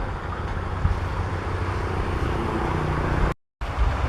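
Rice combine harvester's engine running steadily under load with a low rumble, cut off by a brief full gap a little over three seconds in.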